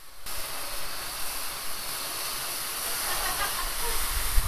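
Steam locomotive venting steam: a loud, steady hiss that starts suddenly about a quarter second in.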